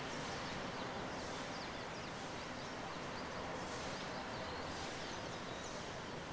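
Steady hiss of light rain, with many short, high, falling chirps of small birds scattered throughout.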